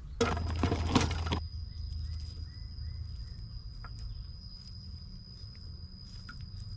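Outdoor ambience: a loud burst of noise for about the first second and a half, then a steady high-pitched whine with a few faint chirps and scattered ticks over a low hum.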